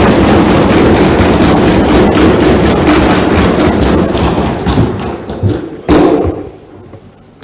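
Many legislators thumping their wooden desks in welcome, a dense steady clatter of thuds that tapers off over the last couple of seconds, with one sharper, louder knock near the end.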